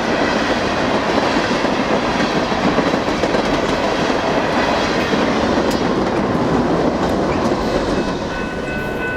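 BNSF ballast train's freight cars rolling past close by, a steady loud rumble with wheels clacking over the rail joints, easing off near the end.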